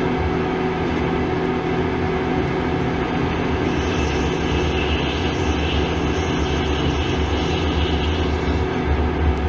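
Hercus PC200 CNC lathe boring brass with a small carbide CCGT-insert boring bar, making a steady, noisy cutting sound over the machine's hum. The noise is the sign of the boring bar set well below centre.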